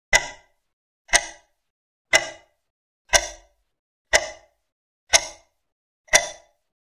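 Countdown timer sound effect: a sharp tick once a second, each dying away quickly, seven in all.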